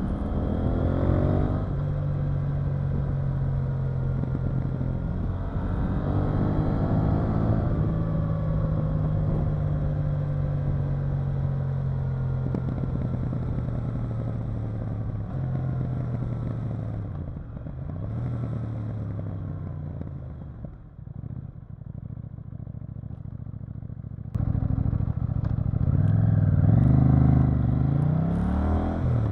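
KTM 890 Duke R's parallel-twin engine heard from on board the bike. It pulls up through the revs twice early on, holds a steady cruise, then drops in pitch and quietens as the throttle is rolled off. About 24 seconds in it turns sharply louder and revs up hard again.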